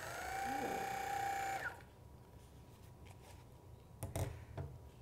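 Theragun PRO massage gun switched on: its motor spins up with a rising whine, runs steadily for about two seconds, then winds down. A few light knocks follow near the end as the gun is set down on a table.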